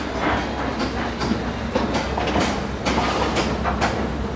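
Steel reinforcing bars clanking and rattling irregularly as they are handled, over a steady low machine hum.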